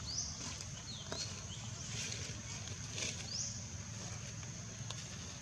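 Outdoor ambience: a steady, high-pitched insect drone, with several short, high rising chirps and a low steady rumble underneath.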